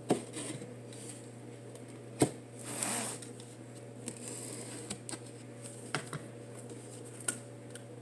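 A cardboard product box being handled and shifted on a tabletop: a few sharp knocks and taps, the loudest about two seconds in, with a short rustle of packaging just after it. A steady low hum runs underneath.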